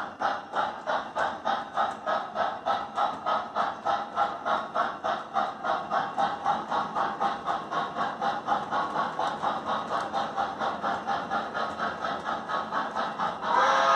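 Model Pennsylvania G5s steam locomotive's Proto-Sound 3.0 sound system playing steady steam chuffs, about four a second, in time with the running train. Near the end its steam whistle starts to blow.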